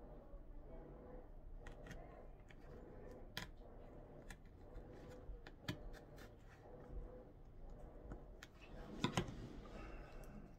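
Faint clicks, taps and light rubbing of a knife cutting open a small pepper by hand, with a cluster of louder taps about nine seconds in.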